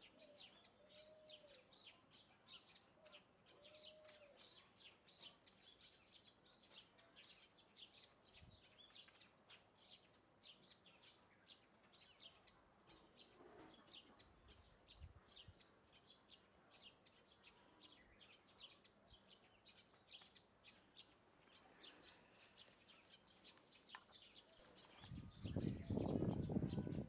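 Faint, rapid, high chirping of small birds repeating about two to three times a second, with a louder low rumble coming in near the end.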